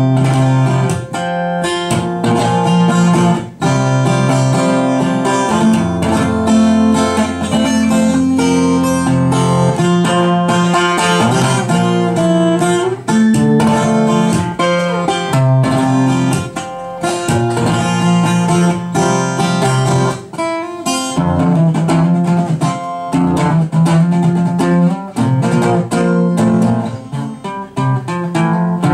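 Solo acoustic guitar played live: a picked melody ringing over low bass notes, with frequent sharp attacks from the strings.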